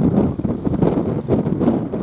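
Strong wind buffeting the microphone in uneven gusts, a loud low rumble.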